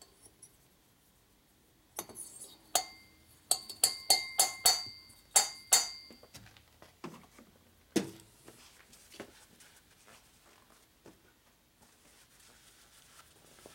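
About nine sharp metallic clinks with a brief ringing tone, spread over about four seconds, from a Harley shovelhead cylinder head and its valves being handled on a steel workbench. A single knock follows about eight seconds in, then a few lighter clicks.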